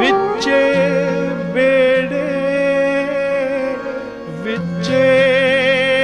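Live Punjabi Sufi folk music: a harmonium's held chords with acoustic guitar and transverse flute, and a man singing long notes with a wavering vibrato.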